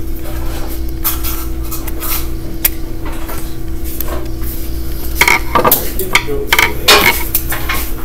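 Metal clicks and scrapes from a screwdriver turning the terminal screws of a light switch mounted on a metal electrical box, with the box being handled. The clicks come thicker about five to seven seconds in, over a steady background hum.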